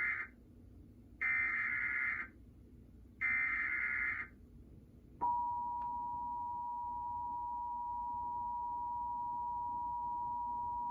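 Emergency Alert System header: the last of one digital data burst, then two more burst-like warbling stretches about a second long each, a second apart. About five seconds in, the steady two-tone EAS attention signal starts and holds, announcing a severe thunderstorm warning.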